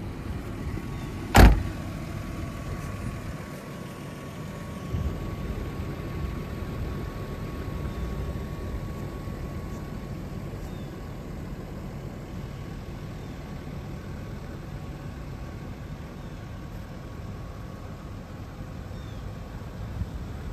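A car door on a 1997 Nissan Leopard sedan slammed shut once, about a second in, with a loud solid thud. After it comes a steady low rumble with a faint thin whine that fades out about halfway through.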